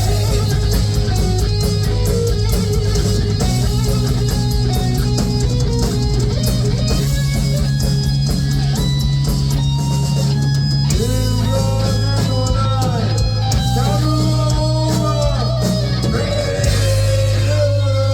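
Heavy metal band playing: electric guitars over bass and drums. Over the second half a melodic lead line with bent, sliding notes stands out.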